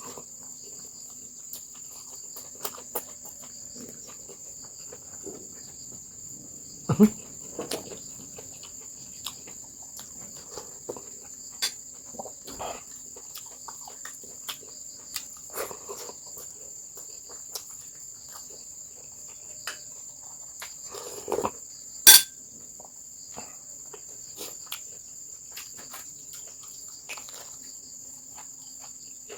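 A steady, high-pitched chorus of crickets, with scattered small clicks and knocks over it. The loudest are a knock about seven seconds in and a sharp click about twenty-two seconds in.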